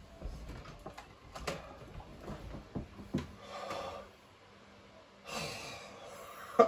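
A man blowing out hard breaths through his open mouth, trying to cool a mouth burning from a Carolina Reaper chip: two long exhales, one in the middle and one near the end. Before them, a few knocks and rustles as a small plastic fan is picked up and handled.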